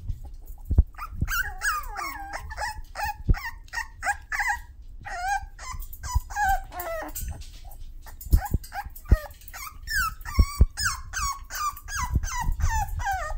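Toy poodle puppies giving many short, high-pitched yips and whines in quick succession, with a few soft knocks between the calls.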